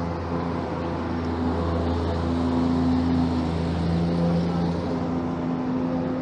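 Steady low rumble of a motor vehicle's engine, with humming tones that come and go.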